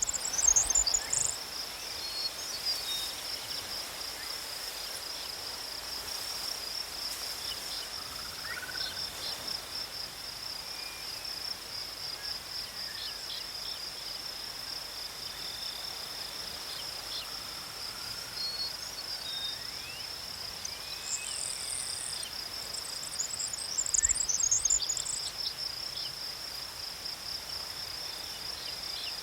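Steady high-pitched insect chorus, a continuous rapid pulsing trill of crickets or similar insects, with a few brief bird chirps and faint whistles around it, loudest about three quarters of the way through.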